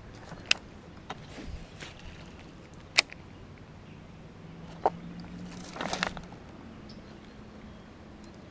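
Baitcasting reel being cranked, a faint steady whir, with sharp clicks about half a second, three seconds and five seconds in and a short rattle of taps about six seconds in.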